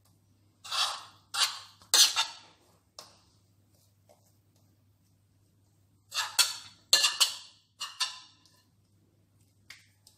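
Spoon knocking against a plate as pastry cream is scraped off it onto the dough: sharp clacks in two groups of three or four, a few seconds apart.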